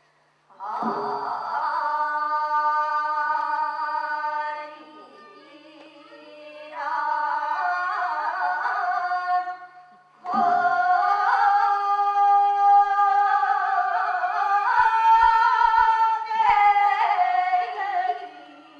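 Korean folk-style singing in long held notes: three phrases, the first about four seconds, the second shorter, the last about eight seconds with the pitch wavering near its end.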